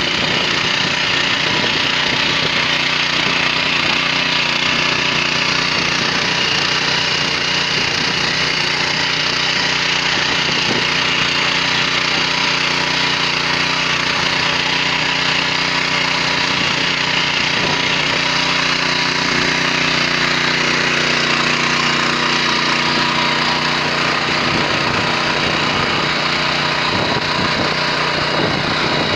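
A WEIMA 1000N walk-behind tractor's engine runs steadily under load while its rotary tiller cutters work the soil and mustard plants. The pitch shifts slightly about two-thirds of the way through.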